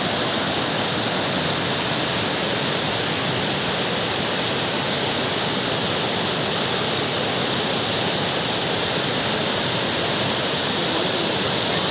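Waterfall rushing close by: a loud, steady roar of falling water.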